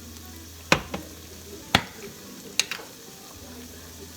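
Ground beef sizzling in a frying pan, with a utensil knocking sharply against the pan three times, about a second apart, as the meat is stirred.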